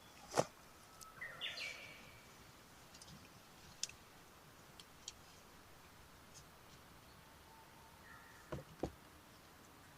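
Faint bird chirps, a short rising call about a second in and another near the end, with a few sharp knocks and clicks.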